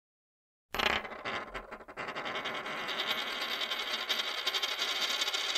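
Logo-animation sound effect: it starts suddenly about a second in and continues as a dense, bright rattle of many tiny clicks at an even level.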